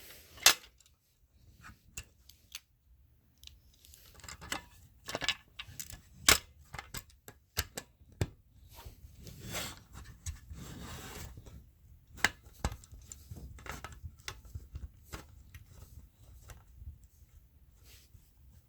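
Handling an opened fire alarm pull station: scattered sharp clicks and knocks of its parts, with a few short stretches of scraping and rustling.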